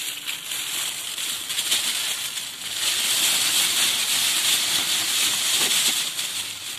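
Thin plastic bag rustling and crinkling as a basketful of green beans is tipped into it, loudest in the second half.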